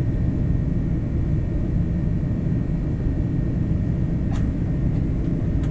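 Steady low rumble of a jet airliner heard from inside the passenger cabin during takeoff, with a faint steady whine above it and a brief click about four seconds in.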